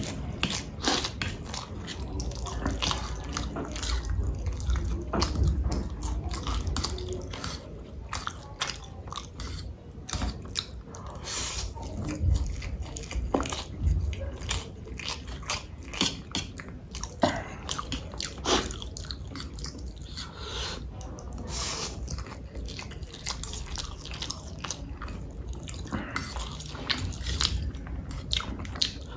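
A person eating close to the microphone: a continuous run of wet chewing, biting and mouth smacks, with many short clicks throughout.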